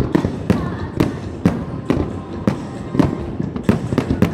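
Fireworks going off in quick succession: sharp bangs coming about twice a second over a steady rumble.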